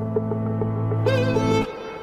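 Background music: a bowed string melody over held low notes and a quick, steady pulse, with the low part dropping out about one and a half seconds in.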